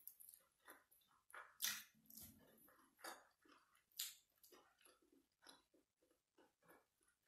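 Faint, close-up eating sounds: a person chewing and sucking food off their fingers, a run of wet clicks and lip smacks, two of them louder about two and four seconds in.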